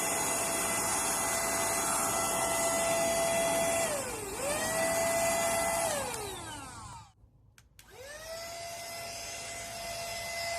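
Cordless vacuum cleaner motor running with a steady whine and rushing air. About four seconds in the pitch dips briefly and recovers. Around six seconds it is switched off and the whine falls away, then about a second later it is switched back on and rises to speed.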